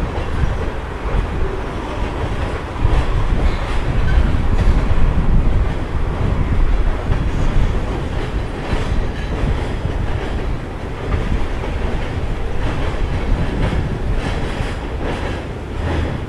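Freight cars (boxcars and covered hoppers) rolling slowly across a railroad bridge: a steady low rumble with the wheels clacking over rail joints, the clacks bunching about halfway through and again near the end.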